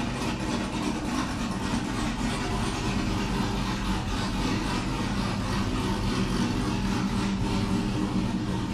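V8 truck engine idling steadily at a constant speed, with no revving.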